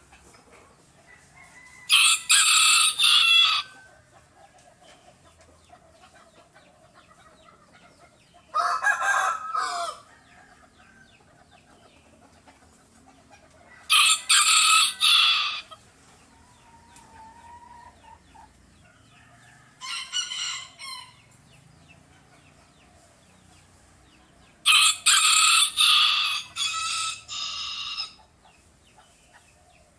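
Rooster crowing five times, about every five to six seconds; the fourth crow is fainter and the last one runs longest.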